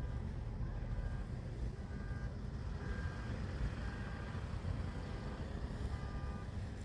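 A steady low rumble with several faint, short, high calls over it, typical of seagulls, recurring every second or so.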